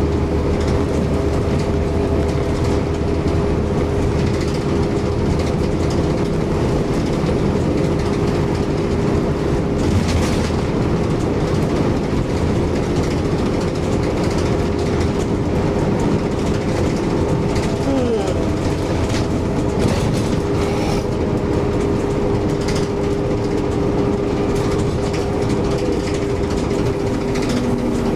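Inside a moving bus: the engine drones steadily over road and tyre noise, with a constant whine and occasional rattles. The deep rumble eases a little about ten seconds in.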